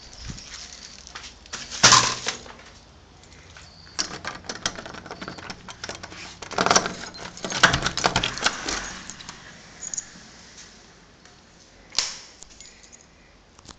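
Keys jangling and a key being worked in a wooden door's knob lock: a run of metallic clicks and rattles through the middle. A sharp knock comes about two seconds in and another near the end.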